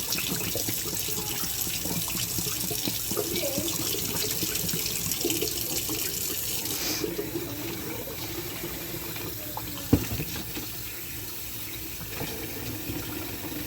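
Water running from a tap into rabbit water bottles as they are filled, the flow shutting off about halfway through. A single sharp knock follows a few seconds later.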